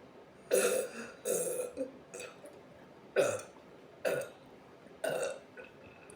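A woman burping repeatedly: a run of about six burps roughly a second apart, the first the loudest.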